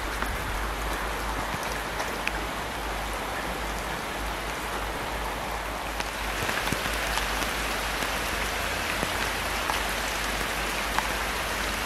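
Steady rain falling outdoors, an even hiss dotted with small drop ticks, growing a little louder and brighter about six seconds in.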